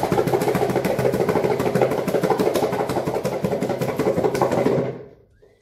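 Shallots and a little water rattling inside a lidded plastic container that is shaken hard and fast, a loud, rapid, even rattle that stops about five seconds in. The shaking knocks the papery skins loose so the shallots peel easily.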